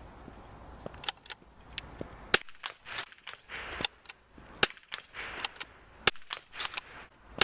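Small-bore .22 biathlon rifle firing a series of sharp shots at irregular intervals.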